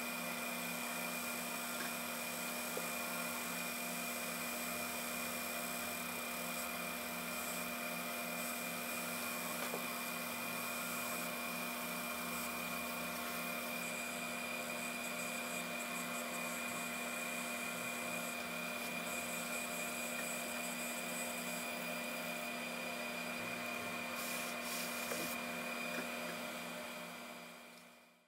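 Fibre laser engraving machine running while it marks a brushed metal plate: a steady machine hum with a high whine over a hiss. The sound shifts slightly about halfway through and fades out near the end.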